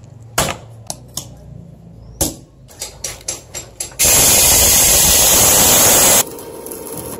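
A series of sharp hammer blows on a steel rod for the motorcycle's brake pedal. About four seconds in, an angle grinder bites into metal with a loud, harsh noise for about two seconds, then cuts off suddenly.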